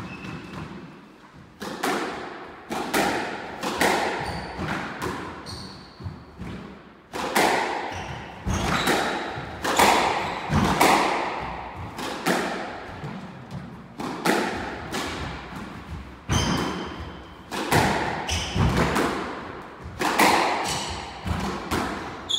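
Squash rally: a squash ball struck by rackets and hitting the court walls, a string of sharp cracks with echoing tails, about one to two a second. Short high squeaks of shoes on the wooden court floor come in between.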